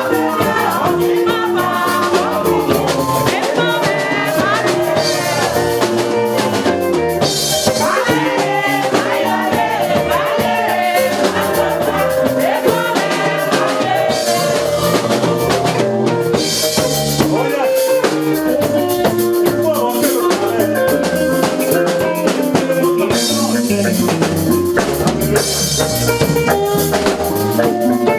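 Live band music with a steady drum-kit beat, keyboard and some singing.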